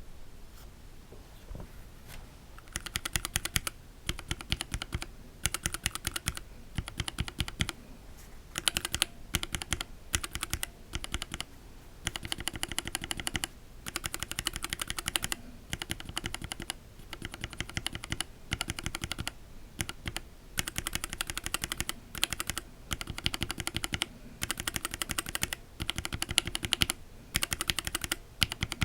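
Gateron Linjar linear mechanical keyboard switches, one stock and unlubed and one lubed with Christo-Lube MCG 129, pressed rapidly over and over in short bursts of clacking with brief pauses between. It is a before-and-after lube sound test; the lubed switch sounds cleaner to the reviewer.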